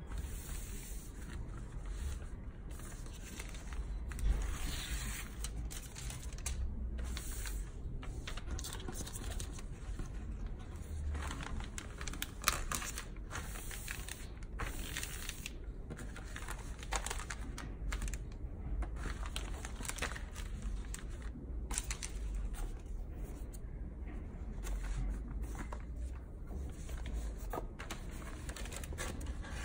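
Clear plastic Adaptaroll book-covering film crinkling and rustling as hands smooth and fold it flat on a table, with many irregular small crackles.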